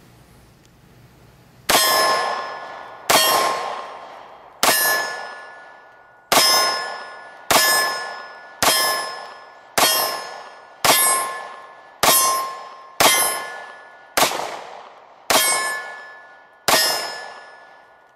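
Thirteen shots from a Beretta Px4 Storm Sub-Compact 9mm pistol at steel targets, a little over a second apart. Each hit rings the steel plate with a clear metallic tone that fades over about a second.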